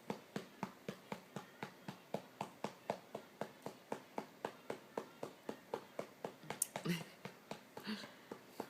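A cupped hand patting a baby's back in a steady rhythm, about four to five pats a second, to bring up a burp. A louder short sound comes about seven seconds in.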